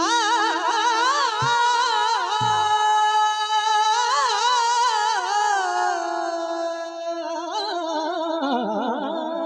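A high voice singing a long wordless melodic phrase with strong vibrato and ornamented turns over a steady drone note; near the end the melody sinks lower.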